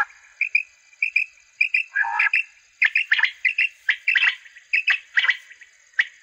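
Recorded quail calls played through a pair of small battery-powered horn loudspeakers rigged as a quail caller: many short high notes, often in quick pairs and threes, with a few fuller, harsher bursts.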